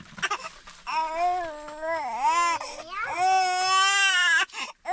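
Young child crying hard: a few drawn-out wails that bend down and back up in pitch, the longest about a second and a half, cutting off just before the end and starting again.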